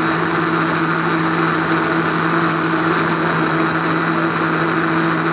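Electric countertop blender motor running steadily at one speed, a constant hum that holds its pitch, as it blends milk and banana into a milkshake.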